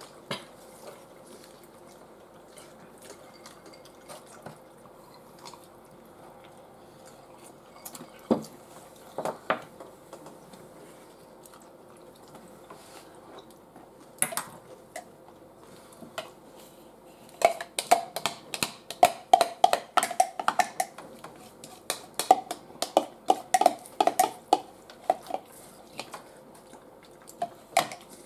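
Forks clinking and scraping on a metal baking tray while food is picked off it: scattered clicks at first, then a dense run of quick, ringing clicks for several seconds in the second half.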